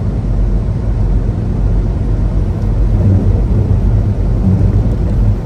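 Steady low rumble of a semi truck on the move: engine drone and road noise, unchanging throughout.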